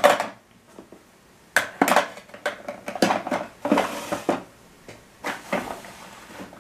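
Makeup containers and compacts clacking and rattling as they are rummaged through by hand, in several short spells of clicks.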